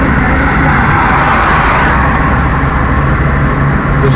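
Car driving along the road: steady engine hum and road noise.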